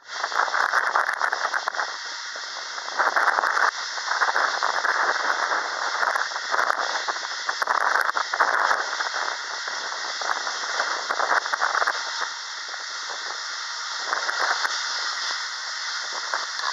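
Gusty rushing and crackling noise that swells and fades every second or so: wind buffeting the microphone.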